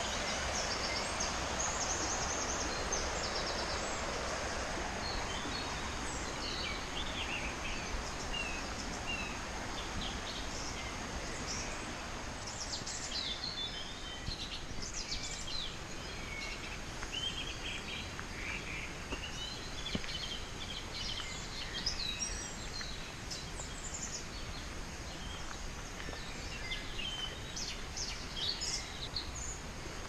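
Woodland birds chirping and trilling over the steady rush of a forest stream; the water noise fades over the first ten seconds or so while the birdsong grows busier.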